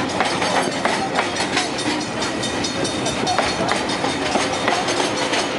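Freight train's container wagons rolling past at close range, a steady clatter and rattle of wheels on the rails.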